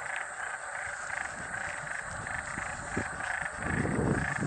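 A chorus of frogs calling after heavy rain: a steady, fast-pulsing croaking. A low rumble comes in near the end.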